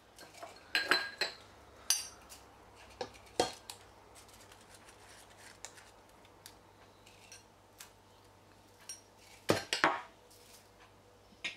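Kitchen handling sounds: scattered sharp clinks and knocks of a glass spice jar and utensils against the stainless-steel Thermomix mixing bowl as dried spices and bay leaves are added. The loudest clusters come about a second in and again near the end.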